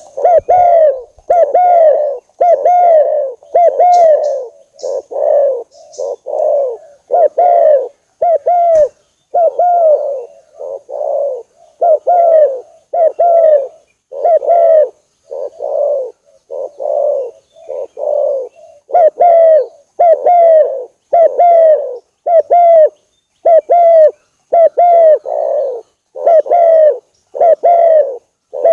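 Spotted dove (terkukur) cooing over and over, a steady string of short coos at about three every two seconds, each falling slightly at the end.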